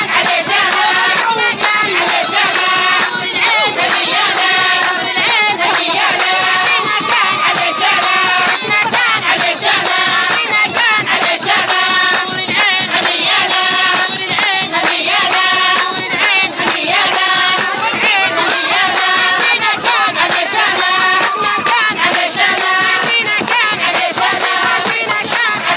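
A group of women singing together with steady rhythmic hand clapping, loud and continuous.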